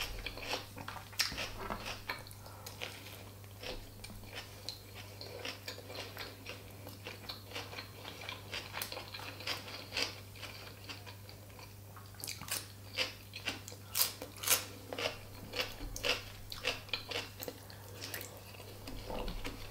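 Close-miked chewing and biting of food: a run of short wet mouth clicks and some crunching, busiest in the second half, ending with a bite of soft boiled potato. A steady low electrical hum runs underneath.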